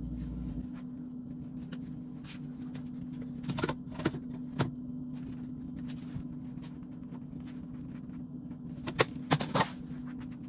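A few light clicks and knocks as a hand handles a kitchen cabinet's black plastic adjustable leg, in two short clusters, the second near the end, over a steady low hum.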